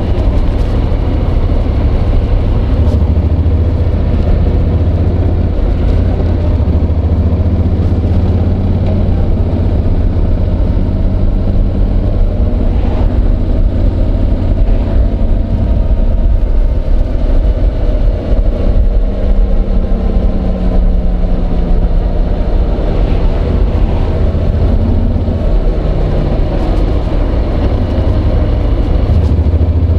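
Honda NC750X's parallel-twin engine running, its pitch rising and falling gently, under heavy low rumble. It is picked up through a microphone in a jacket pocket, with the mic scraping against the slippery fabric.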